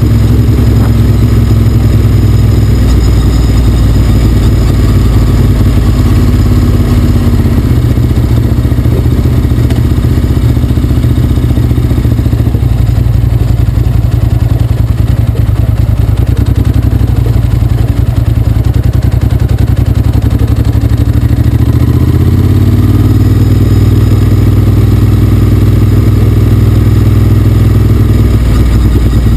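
Motorcycle engine running steadily while riding, loud and close to the microphone, with a change in engine note about 22 seconds in as the pitch shifts and rises.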